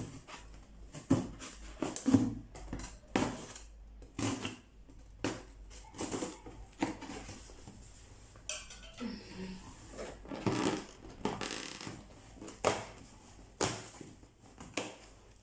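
Irregular knocks and clatter of household items being picked up and set down while unpacking.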